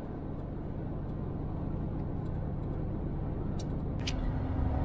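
Steady engine and road noise heard from inside a lorry's cab while driving at speed, with a couple of brief clicks about three and a half to four seconds in and a steady hum joining near the end.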